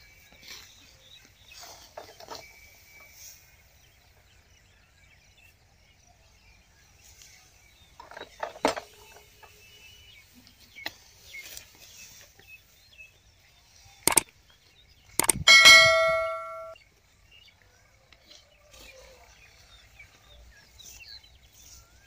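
Faint scattered knocks and rustles, then a sharp knock. About a second later comes a loud metallic clang that rings on for about a second.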